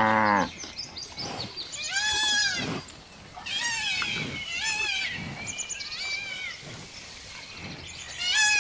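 The end of a cow's moo, cutting off about half a second in, followed by a goat bleating repeatedly: high-pitched calls that rise and fall, about one a second.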